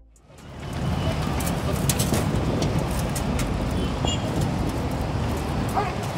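Steady outdoor background rumble and hiss, such as distant traffic or wind, fading in over the first half second, with a few faint clicks on top.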